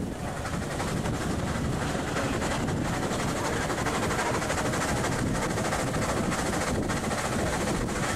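1911 Stanley Model 85 30 hp steam car driving at speed uphill, its two-cylinder steam engine and running gear making a steady, rapid clatter over the rush of road and wind noise.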